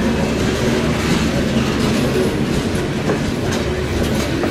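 Freight train of Norfolk Southern open-top hopper cars rolling past, a steady rumble of steel wheels on rail with a low hum and a few faint clicks of wheels crossing rail joints.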